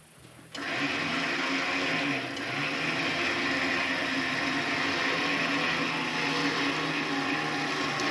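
An electric motor starts abruptly about half a second in and then runs steadily under load, with a brief dip in level about two seconds in.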